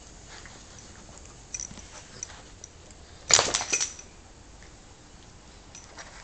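A mini pig and a mastiff-cross dog at play: a few faint clicks, then a short, loud, rough animal noise about three seconds in, lasting about half a second.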